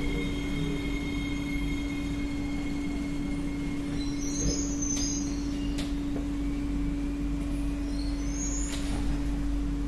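Inside a C151B MRT train as it slows to a stop at a station: a steady electric running hum, with higher motor whine tones that fade away by about halfway as the train loses speed. Short hisses come about halfway and again near the end.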